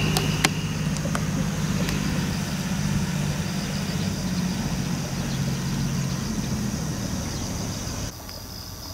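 A steady low engine-like hum, with insects chirping high above it; the hum cuts off abruptly near the end.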